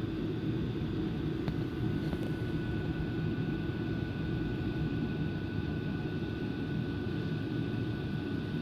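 Steady low rumbling background noise with a faint high steady whine and no clear events, such as a fan or room hum picked up by a phone microphone.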